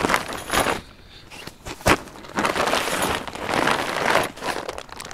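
Nylon fabric rustling and crinkling in bursts as a blue stuff sack and rolled fabric bundle are handled and rolled up, with a short lull broken by a single sharp click about two seconds in.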